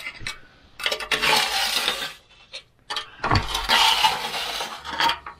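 A homemade long metal scraper dragged along the inside of a road grader's steel tandem chain case, scraping out oily sludge full of chain metal flakes. It makes two long scraping strokes, with metallic clinks and knocks between them.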